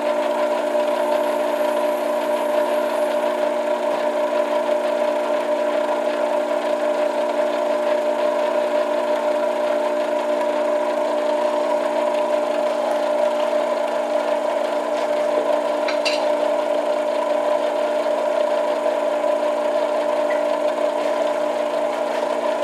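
Benchtop metal lathe running at a steady speed with its chuck spinning an acrylic pipe-stem blank, giving a constant, even machine whine.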